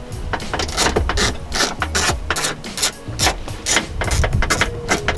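Hand socket ratchet clicking in quick runs, several clicks a second, as a bumper mounting nut is undone.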